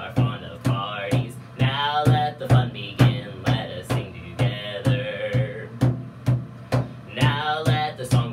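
Sea shanty sung by a solo voice over a steady percussive beat, a low thump and a sharp click in turn, about two a second. The singing pauses briefly about two-thirds of the way through while the beat carries on.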